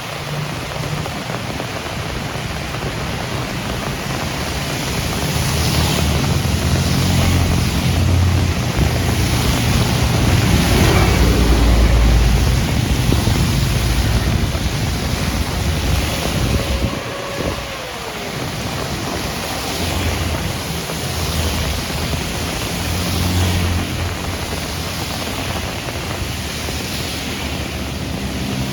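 Heavy rain falling steadily, with the low rumble of vehicles going by on a wet road. About halfway through, one passing engine's pitch drops as it goes by.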